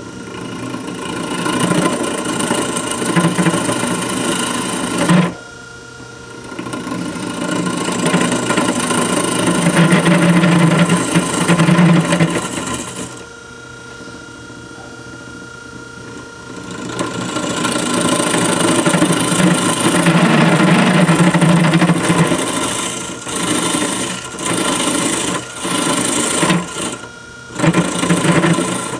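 Gouge cutting into a spinning oak blank on a wood lathe: three long cuts, then a run of short cuts near the end, with the lathe's steady running hum heard in the gaps between cuts.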